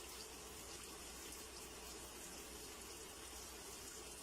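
Faint steady hiss with a low hum underneath.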